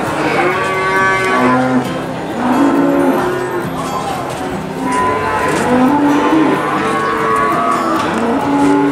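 Cattle mooing: many overlapping calls, several at once, rising and falling in pitch with no break.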